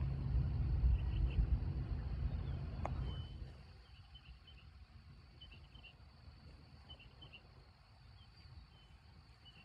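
Twin turboprop engines of a Beechcraft King Air C90A droning with a steady propeller hum, which drops away sharply about three and a half seconds in. Faint open-air ambience follows, with a high chirp repeating about once a second.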